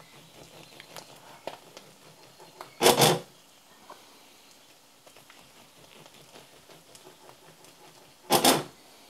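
Serrated bread knife sawing through a loaf of sourdough sandwich bread. There are two louder scraping strokes, about three seconds in and near the end, with faint knife and crumb sounds between them.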